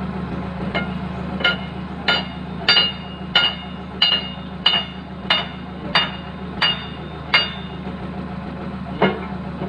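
Steel hammer blows ringing on a steel bar held against the pin joint of a Hitachi Zaxis 135 excavator's boom: about eleven strikes at an even pace of about three every two seconds, then one more near the end. The excavator's diesel engine idles steadily underneath.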